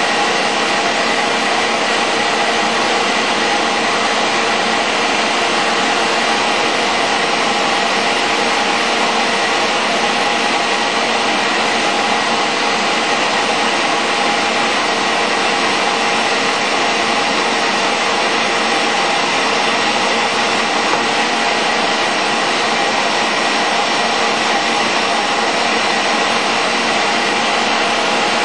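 Air compressor and vacuum running together with an electric heat gun blowing: a loud, unbroken machine drone, a steady motor whine with several fixed tones over a hiss.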